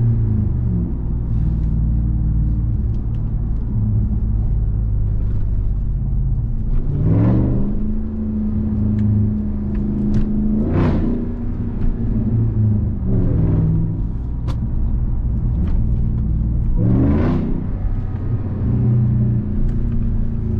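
2021 RAM 1500 TRX's supercharged 6.2-litre Hemi V8 pulling the truck along, heard from the driver's seat. It runs with a steady rumble, and the revs climb and drop back about three times as the truck accelerates through the gears.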